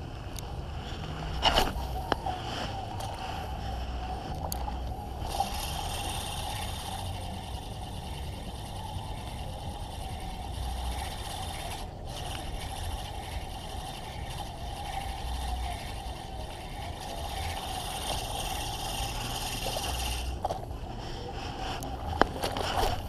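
Baitcasting reel being cranked to retrieve a lure, with wind on the microphone; a short sharp sound about a second and a half in, and another near the end as the lure is cast.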